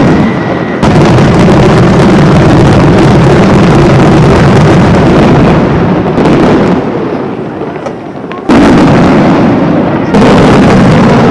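Aerial fireworks shells bursting in quick succession, a dense, almost unbroken run of loud bangs and crackle, with fresh volleys striking sharply about a second in and again three more times in the second half.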